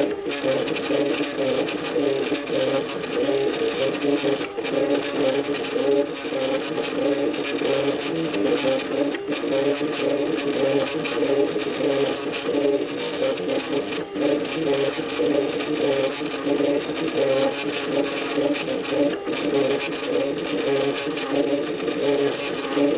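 MakerBot Cupcake CNC 3D printer's stepper motors running in quick, constantly changing tones as the extruder head moves while printing in ABS plastic.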